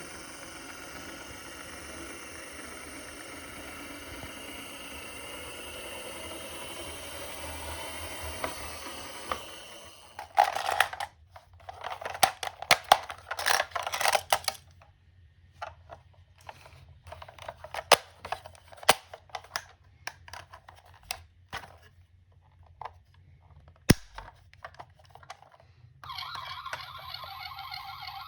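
Die-cast toy minicars clicking and clattering as they are handled, with sharp knocks, clustered between about ten and fifteen seconds in and with one hard knock near twenty-four seconds. A toy-video ambulance siren sound runs faintly over a hiss at the start, fades out before the clicking, and starts again near the end.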